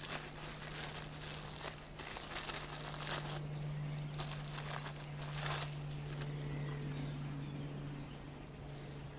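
Rustling and scraping of a person shifting and crawling out from under a truck, over a steady low hum. The rustling stops about six seconds in.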